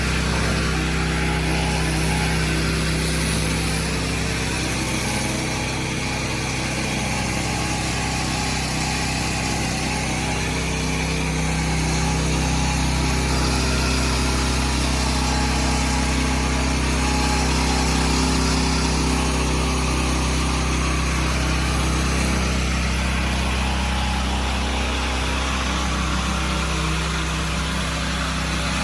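Pressure washer driven by a Honda GX390 single-cylinder four-stroke petrol engine, running steadily under load, with the hiss of the high-pressure water jet spraying onto a slate patio.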